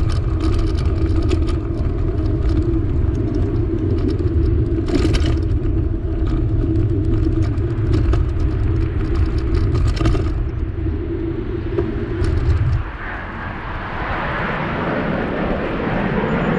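Wind rushing over the microphone of a camera mounted on a moving bicycle, a steady low rumble with scattered rattles and knocks from the road. About thirteen seconds in, the deep rumble drops away and a higher, rougher hiss takes over.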